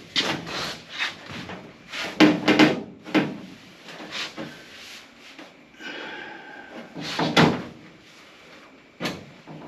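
Loose sheet-metal quarter panel skin being handled against the car body: a series of knocks and rattling bangs, loudest about two and seven seconds in, with a short metallic scrape around six seconds.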